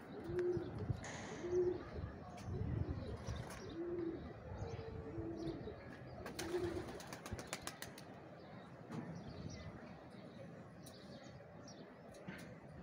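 Domestic pigeons cooing, a short low coo about every second through the first seven seconds, with a quick burst of wing flapping and clapping about six and a half seconds in.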